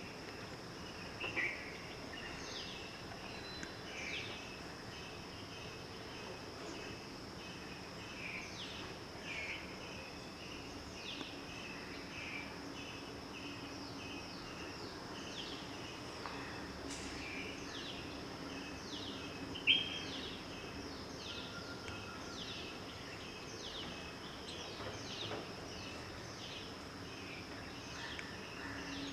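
Outdoor birdsong and insects: many short, falling bird chirps repeat over a steady, high insect trill, with one louder chirp about two-thirds of the way through.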